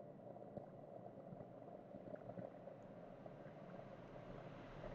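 Faint steady hum of running workbench equipment, with a few faint ticks about half a second to two and a half seconds in.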